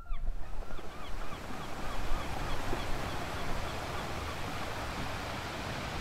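Ocean surf washing in a steady rush, with a series of faint, quick chirps repeating a few times a second and fading away over the first few seconds.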